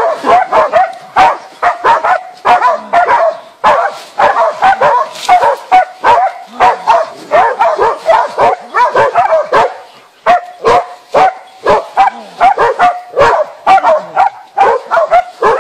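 Hunting dog barking rapidly and without let-up, about three barks a second with some higher yips: bay barking at a wild boar it is holding cornered.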